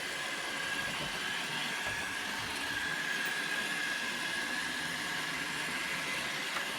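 Roomba robot vacuum running across the floor: a steady whirring with a high, even whine that grows a little stronger about halfway through.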